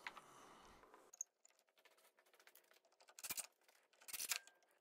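Near silence, broken by a faint click about a second in and two short bursts of scratchy, clattering noise near the end, from tools and a clamp being handled at the table saw sled.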